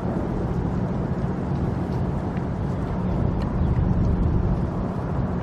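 Steady low rumble of road noise from vehicles.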